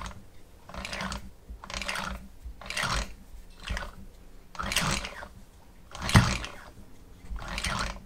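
Crankshaft and small gears of a Hoglet V-twin model engine turned by hand with a hex key, giving short bursts of light metallic clicking about once a second. The bottom end turns freely.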